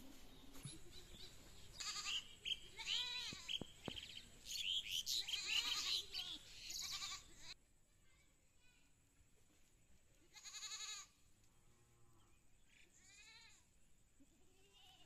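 A goat bleating about five times, the calls spread out with pauses between them, over faint background noise that is busier in the first half.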